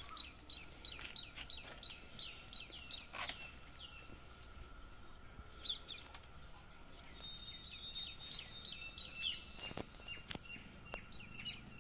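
A small bird calling in fast runs of short, falling chirps, about four a second, in two spells with a pause in between. A few sharp clicks near the end.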